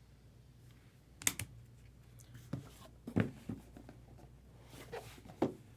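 A handful of scattered clicks and light knocks, about six, spread unevenly over a steady low hum.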